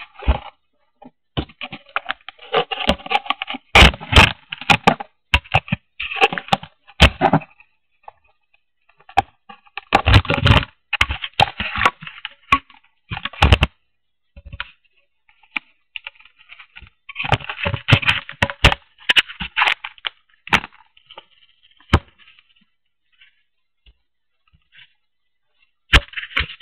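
Handling noise on a small recorder strapped to a model plane: irregular bursts of scraping, rustling and sharp knocks as the plane is picked up and moved, with quiet pauses in between.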